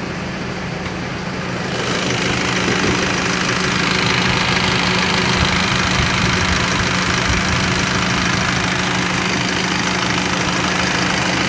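Tata Hexa's air-conditioning system running with the engine idling, a steady hum underneath, making the abnormal noise the owner is asking about. About two seconds in, the sound grows louder with a stronger rushing hiss.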